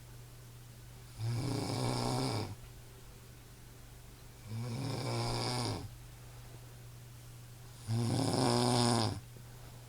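A person snoring heavily: three long, pitched snores about three seconds apart, with quiet breathing gaps between them. A steady low hum runs underneath.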